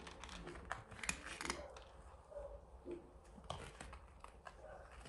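Cat chewing dry kibble: faint, irregular crisp crunches, the loudest about a second in and again around three and a half seconds.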